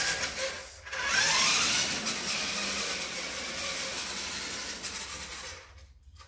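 Kyosho Double Dare electric RC monster truck driving on a concrete floor: its motor and gears whine along with the tyres. The whine rises in pitch as it speeds up about a second in, then fades as the truck runs off into the distance and drops away near the end.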